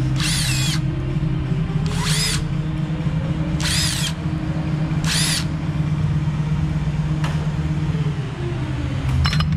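Milwaukee cordless driver spinning in four short bursts, each a brief rising and falling whine, as it runs the water pump pulley bolts down on an engine; a steady low hum of background music sits underneath.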